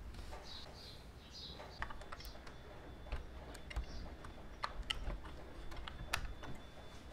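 Small irregular clicks and taps of fingers handling a model car, its parts knocking and clicking under the fingers.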